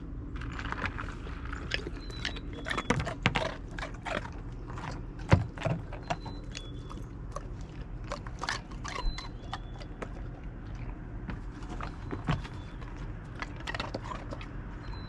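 A Great Pyrenees crunching and chewing ice cubes: irregular crisp cracks and crunches, sometimes several in a second, the loudest about five seconds in.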